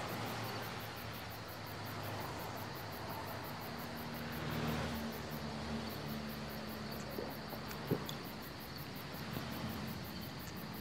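Quiet night-time outdoor ambience: a steady hiss with a faint high cricket trill, a faint low hum through the middle, and two small clicks about seven and eight seconds in.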